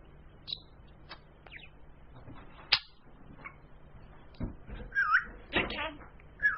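Pet budgerigar making a string of short clicks and chirps, growing louder in the second half, with a short curling whistle about five seconds in and another near the end.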